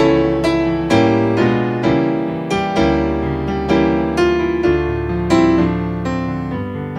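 Solo piano playing slow instrumental music. Notes and chords are struck about twice a second and left to ring out.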